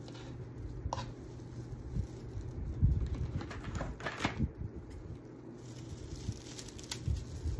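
Rustling and soft irregular knocks of hula-skirt fringe being handled and pressed onto a wooden cutting board, with a few sharp clicks over a steady low hum.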